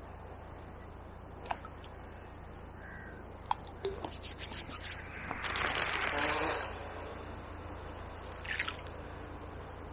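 Small nuggets of bait paste thrown by hand plopping into the river a few times, with a louder harsh rustling noise lasting about a second and a half in the middle.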